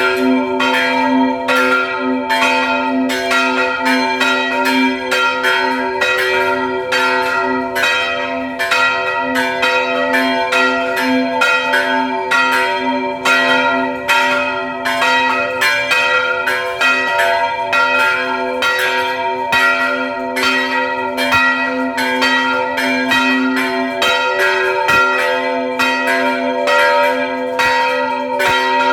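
Two old French church bells, pulled by rope, ringing continuously in quick, steady strokes. Each stroke overlaps the long hum of the ones before it. The bells are being rung ahead of Mass.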